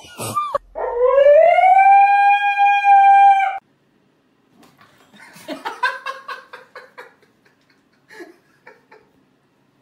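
A dog howls one long note that rises and then holds steady for about three seconds, then cuts off suddenly. After a short gap come softer, choppy whimpering sounds from an animal.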